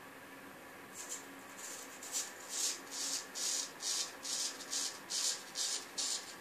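Vintage early-1900s A.J. Jordan straight razor (Friday's blade of a seven-day set) scraping through lathered beard stubble in short, rapid strokes. The strokes begin about a second in, about a dozen at two to three a second.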